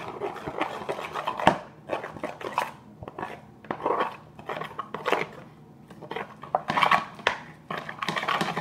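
Metal spoon stirring a thick mix of glue, shaving cream and laundry detergent in a plastic bowl, scraping and clacking against its sides in uneven strokes, with one sharper knock about a second and a half in.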